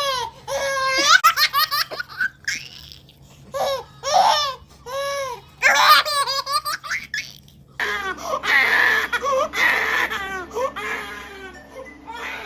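A baby laughing in short, repeated bursts of belly laughs and giggles. About eight seconds in the sound cuts to another clip, where more laughter runs over a louder background hiss.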